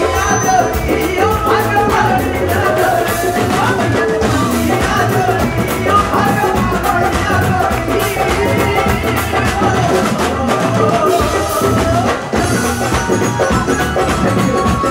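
Upbeat Punjabi bhangra music with a singer over a steady drum beat.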